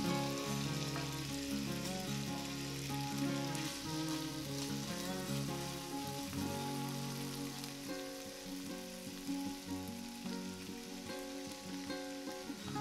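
Sliced sausage and garlic sizzling in a hot frying pan while being stirred with a wooden spoon, over soft background music.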